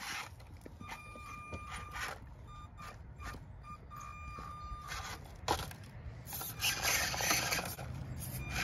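Scale RC rock crawler's small electric motor whining at a steady pitch in short spurts as the truck climbs over rocks, with tires and chassis scraping and clicking on the stone and one sharper knock about five and a half seconds in.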